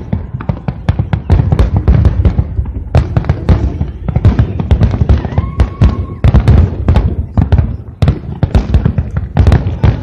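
Fireworks barrage: a rapid, continuous string of loud bangs and bursts, several a second, over a deep rumble.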